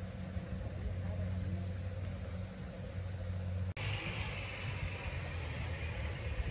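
Kubota rice combine harvester's diesel engine running steadily with a low hum. A little over halfway through, the sound breaks off abruptly and resumes with a higher whir from the machinery added on top.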